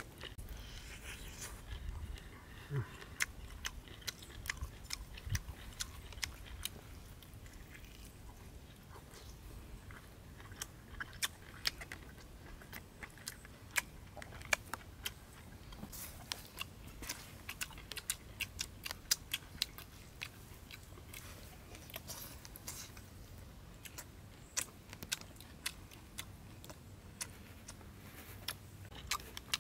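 A person eating, close to the microphone: biting and chewing, with irregular sharp crunching clicks and mouth smacks, several a second at times.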